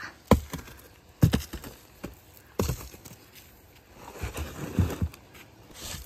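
Freshly dug sweet potatoes being handled and set into a cardboard box: a handful of short, sharp knocks and scuffs, with soft rustling between.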